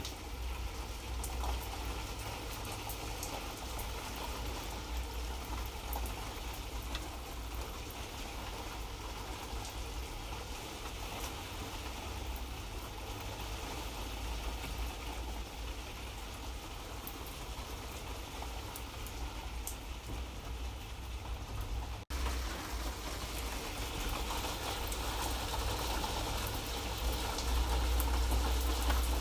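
Light rain falling steadily, a dense patter of drops over a low rumble. The sound cuts out for a split second about two-thirds of the way through and grows a little louder near the end.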